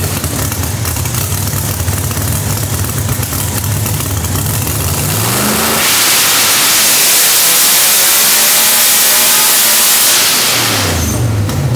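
Noonan 565 ci engine with a ProCharger F-4X supercharger in a drag-race Camaro, idling steadily and then, about five seconds in, revving sharply into a loud high-rpm pull on a hub dyno that lasts about four seconds. It then drops back to idle near the end.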